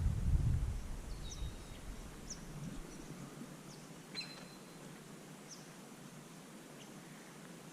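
Small birds chirping now and then, short high chirps over a faint steady outdoor hiss. A brief low rumble sits in the first second.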